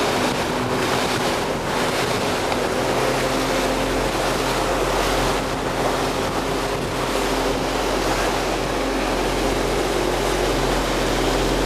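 Small runabout boat under way: a steady engine hum under a constant rush of wind and water.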